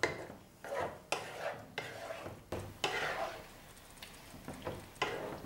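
Wooden spatula stirring and scraping chicken and vegetables in sauce around a nonstick wok, in irregular strokes, over a light sizzle of the food frying.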